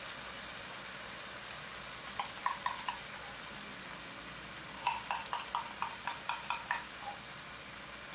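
Chopped onion, peppers and herbs sizzling steadily as they fry in oil in a pan. A metal spoon clinks in quick taps, a few about two seconds in and a run of about ten from about five seconds in, as tomato purée is spooned from its can into the pan.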